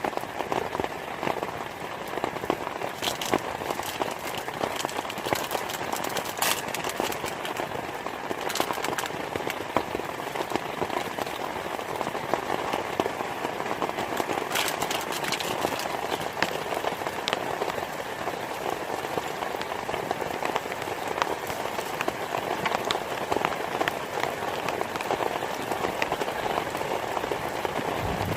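Heavy rain falling steadily, a dense patter of drops striking a surface, with a few sharper, louder drop hits now and then.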